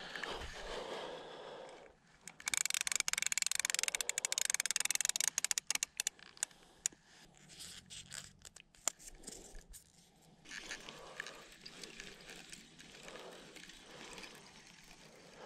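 Rustling, scraping and crackling noises: a dense, rapid run of crackles from about two to seven seconds in, thinning to scattered clicks and then a softer rustle.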